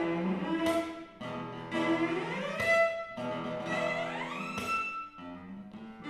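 Cello and classical guitar playing a tango-style duet. Twice the cello makes a long upward slide, and sharp chord attacks punctuate the line.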